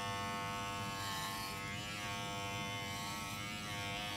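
Electric dog grooming clipper running with a steady hum.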